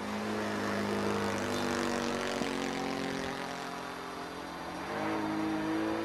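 OS FS-120 Surpass III four-stroke glow engine running on new bearings in a radio-controlled Yak 54 model airplane in flight. Its pitch sinks slowly over the first few seconds, then climbs again about five seconds in.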